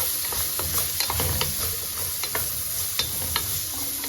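Green beans sautéing in butter in a pan, sizzling steadily while being stirred, with scattered short clicks of the utensil against the pan.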